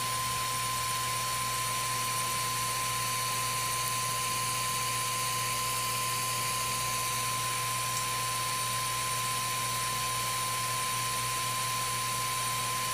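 Small cooling fan on a Cetus3D 3D printer's extruder head running steadily: an even whir with a constant high whine and a low hum.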